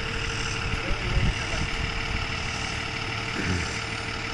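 School bus engine idling steadily, with a louder low rumble about a second in and a shorter one near the end.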